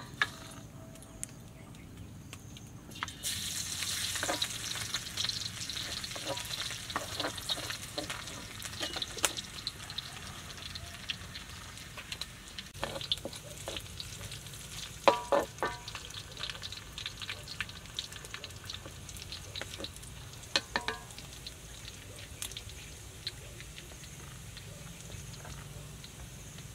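Hot oil sizzling in a wok over a wood fire, the hiss starting suddenly about three seconds in. A wooden spatula stirs and knocks against the wok now and then, with a couple of louder clanks around the middle.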